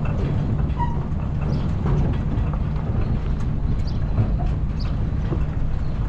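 Aluminum livestock trailer being towed at low speed over a dirt yard: a steady low rumble of the rolling rig with scattered clicks and knocks.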